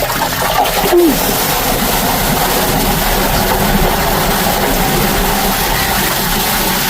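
An engine running steadily under a constant rushing noise, typical of sewer-cleaning equipment at work.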